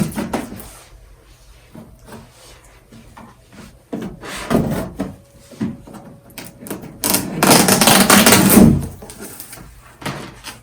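A cardboard box and its packaging being handled and opened: scattered knocks and rustles, with a louder stretch of rustling about seven seconds in that lasts nearly two seconds.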